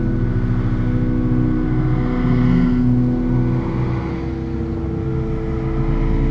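Pipe organ holding sustained chords with deep bass notes, the chord shifting a few times.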